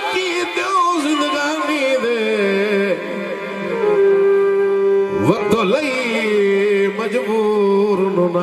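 A man singing a slow, melismatic Punjabi folk song with wavering vibrato and a big sweeping pitch glide about five seconds in, over a steady harmonium drone.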